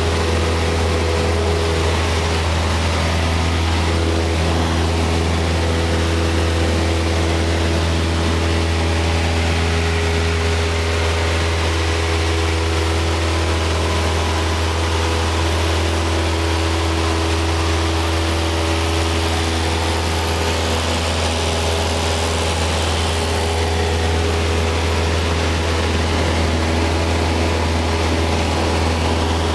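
Cessna 172's piston engine and propeller heard from inside the cabin in flight: a loud, steady low drone with a hiss of air over it, unchanging throughout.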